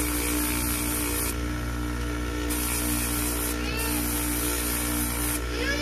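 Bench polishing motor running with a steady hum while a steel watch case back is pressed against the abrasive sleeve on its spindle. The sanding hiss comes and goes as the piece is pressed on and eased off. A short squeal rises and falls near the end.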